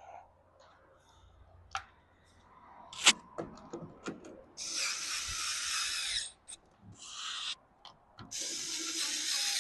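Small cordless driver running in three short bursts, about a second and a half, under a second, and a second long, driving in the small screws of the Revospray pump plate; a few sharp clicks of handling come before them.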